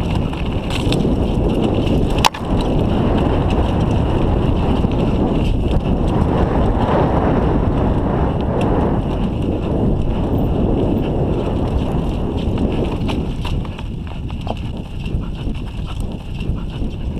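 A mountain bike rolling fast down a stony forest trail: wind on the action camera's microphone, tyres crunching over gravel and rocks, and the bike rattling, with a sharp knock about two seconds in. It goes quieter for a few seconds near the end.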